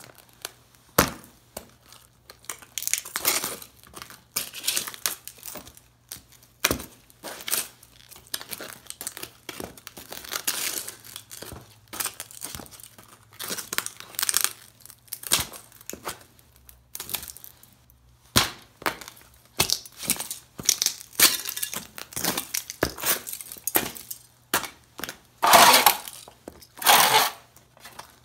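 Heavy leather boots stamping on and crushing the pieces of an old tube radio, giving a string of irregular cracks, snaps and crunches. Two long, loud crunches come near the end.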